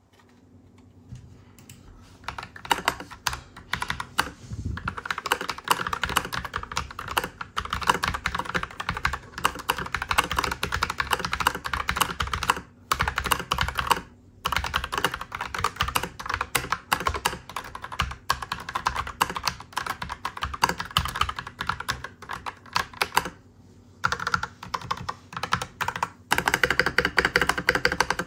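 Fast, continuous typing on an Akko 5087B Plus mechanical keyboard in its stock, unmodded state, a dense run of key clacks broken by a few brief pauses.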